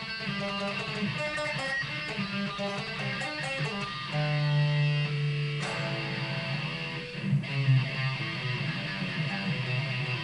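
Electric guitar played through an amplifier: fast runs of single notes picked rapidly with a rigid pick, with a couple of longer held notes in the middle.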